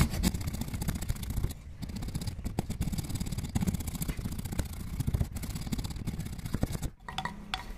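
Chisel whose edge has been hammered into file teeth, rasping back and forth against the inside wall of a mortise in a wooden plane body in quick repeated strokes, smoothing down a small knot.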